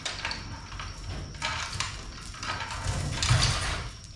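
Steel chains of a manual chain hoist rattling and clinking as it is handled and hung from a roof beam, in uneven bursts that are loudest about three seconds in.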